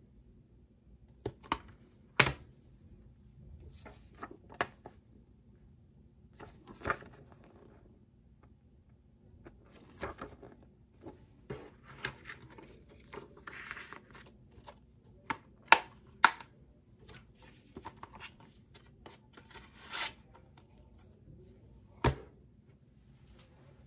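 Handling of a plastic Blu-ray keep case, discs and paper insert: scattered clicks and several sharp snaps of the plastic, a rustle of paper in the middle, and a sharp knock near the end as the case is set down on a table.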